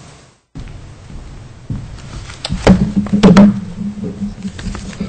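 A cluster of loud knocks and thumps, things being handled and set down on a conference table close to a table microphone, loudest about two and a half to three and a half seconds in, with a low steady hum coming in at the same time.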